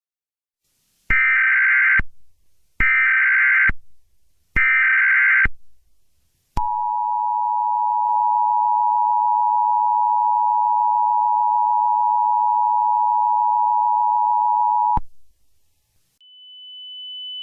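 Emergency Alert System signal: three short bursts of data tones, about a second each, which are the SAME header, then the steady two-tone attention signal held for about eight seconds before it cuts off. A faint, steady high tone comes in near the end.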